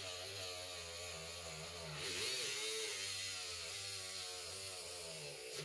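NorthridgeFix Grinding Pen NF.V2, a small battery-powered rotary grinder, running with its bit cutting into the plastic corner of a circuit-board connector. It makes a wavering whine over a hiss, dips in pitch about two seconds in as the bit bites, and stops suddenly at the end.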